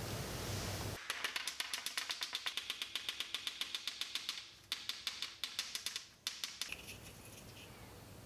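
A fast, even run of light ticks, about six or seven a second. It breaks off briefly partway through, resumes, then stops, leaving faint hiss.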